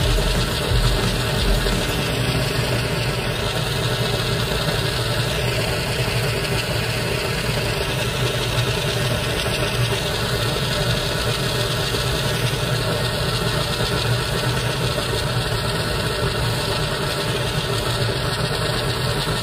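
Hot-spring geyser spouting steam and hot water from a vent in the ground: a loud, steady rushing sound with a deep rumble underneath, unbroken throughout.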